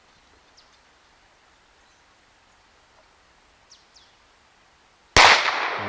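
Faint bird chirps. About five seconds in comes a single loud shot from an unregulated .22 PCP air pistol built on a Huben K1 action, its report trailing off.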